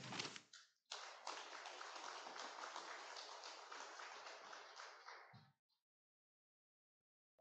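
Congregation applauding: a dense clatter of clapping that starts suddenly about a second in and dies away after about four and a half seconds.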